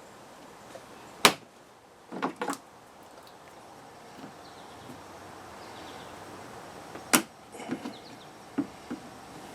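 Sharp plastic snaps and knocks as trim clips and panel pieces on the front of a Smart ForTwo are pulled up by hand. There is a loud snap about a second in, then a quick run of three snaps, another loud snap later, and a few lighter knocks near the end.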